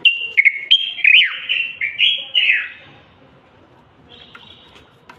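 Common bulbul singing: a quick run of loud, clear whistled notes, several of them sliding downward, over the first three seconds, then a few softer notes near the end.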